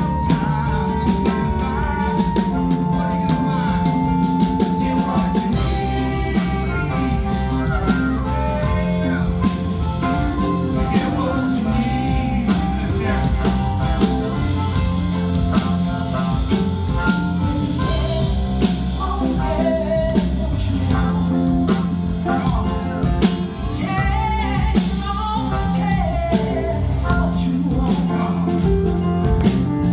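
Live rock band playing, with singing over guitar and a steady drum beat.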